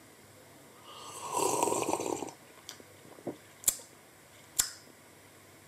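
A man's long, breathy mouth sound as he drinks from a mug, followed by a few sharp clicks, two of them louder.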